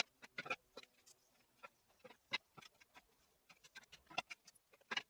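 Faint, irregular light clicks and taps as pine pieces and a combination square are handled and marked out with a pencil.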